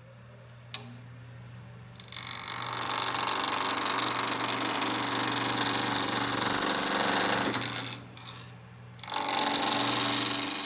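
Wood lathe running with a steady hum as a gouge cuts into a spinning maple end-grain blank, a long cut of about six seconds followed by a brief pause and a second cut.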